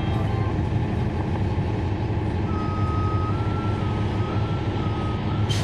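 Cummins ISL9 diesel engine of a NABI 40-foot transit bus running, heard from the rear of the bus as a steady low rumble. A thin high whine comes in about halfway and holds, and a short sharp sound comes near the end.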